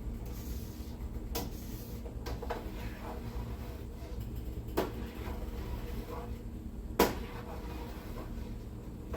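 Kitchen handling sounds: a few light knocks and clicks, like a cupboard or dishes being moved, with the loudest sharp knock about seven seconds in, over a steady low hum.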